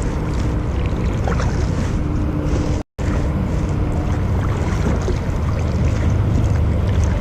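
Steady low wind rumble on the microphone out on the water in a kayak, cutting out for an instant about three seconds in.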